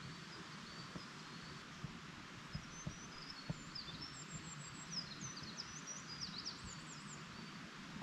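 Small birds chirping in forest: many short, high, thin calls and quick sweeping notes, more of them in the second half, over a faint steady hiss.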